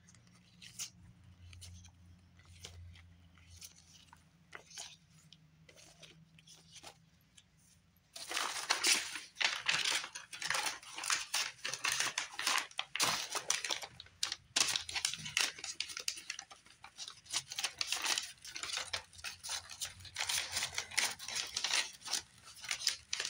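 Paper and plastic packaging being handled: faint rustles and light taps at first, then, about eight seconds in, much louder dense crinkling and rustling as sleeves and envelopes are pulled about.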